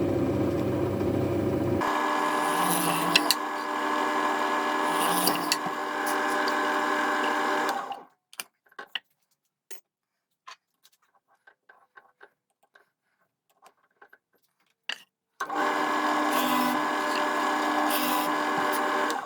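Electric drill motor whining steadily as it drills holes in wood, in two runs: about eight seconds with a deeper note for the first two seconds, then a gap with light handling clicks, then about four seconds more.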